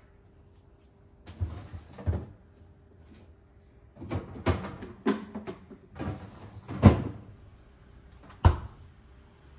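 Kitchen cabinet and appliance doors being opened and shut, with items handled: a string of about six separate clunks and knocks, the loudest about two-thirds through, over a faint steady hum.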